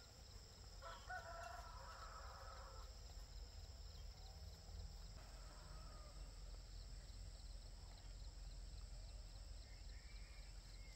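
A rooster crows once, faintly, about a second in, the call lasting about two seconds, with a few weaker calls after it and a faint steady low rumble throughout.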